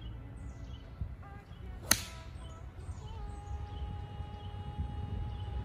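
A single sharp crack of a golf club striking a ball about two seconds in. A low rumble runs underneath, and from about three seconds a steady high tone holds.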